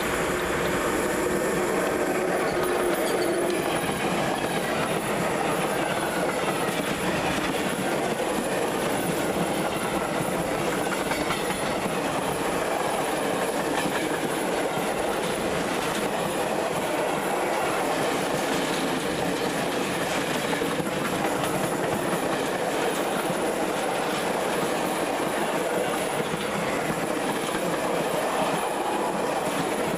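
A ČSD train running on the rails, with the clickety-clack of wheels over rail joints at an even level.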